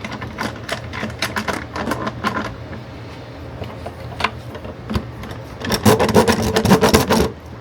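Workshop handling of wooden boards: a run of irregular light clicks and knocks, then a louder rasping, scraping rub lasting about a second and a half near the end.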